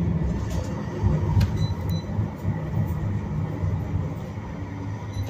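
A Midland Metro T-69 tram running along the line, heard from on board: a steady low rumble of wheels on rail and the car's running gear.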